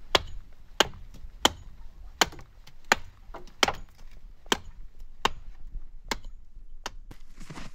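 Axe chopping wood: about ten sharp blows in a steady rhythm, roughly one every three-quarters of a second.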